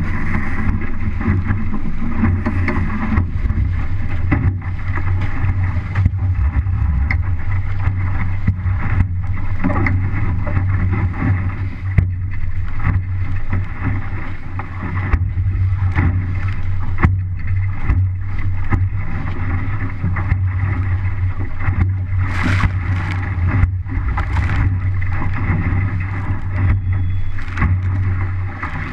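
Wind buffeting the microphone and water rushing and slapping along the hull of an MC-Scow sailboat heeled over and sailing upwind through chop. There are a few louder splashes about three-quarters of the way through.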